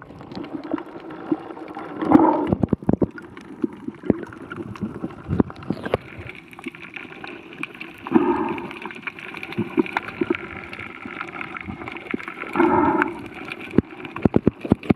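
Underwater sound through a submerged camera: a muffled, steady hiss with many scattered sharp clicks and crackles, and three short louder muffled bursts about two, eight and thirteen seconds in.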